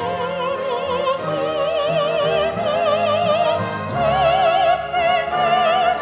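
A female soloist sings a sacred song in trained classical style, holding long notes with wide vibrato over instrumental accompaniment. About four seconds in, the line steps up to a higher held note.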